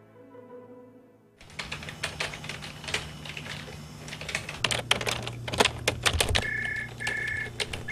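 Rapid typing clicks over a steady electrical hum. About six seconds in, an electronic telephone starts ringing in short two-tone bursts that come in pairs.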